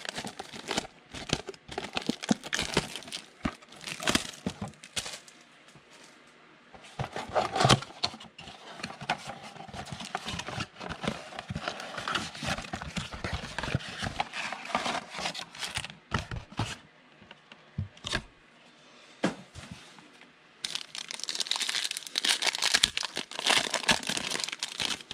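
Packaging of a 2020 Panini Chronicles football trading card box being handled and opened, with scattered crackles and rustles. Near the end a foil card pack is crinkled and torn open.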